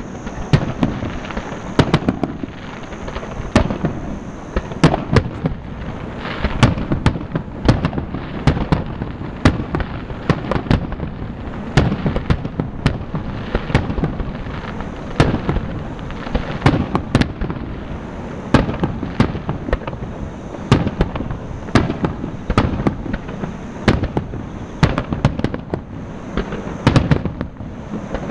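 Fireworks display: aerial shells bursting in quick succession, with sharp bangs one to two a second over a continuous rumble.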